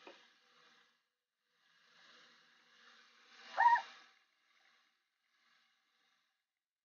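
Soft rubbing of hands massaging cleansing gel over the face, with one short high-pitched squeak about three and a half seconds in.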